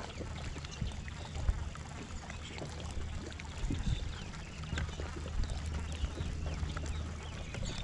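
Fishing boat on the water: a steady low hum with many small clicks and light splashes around it.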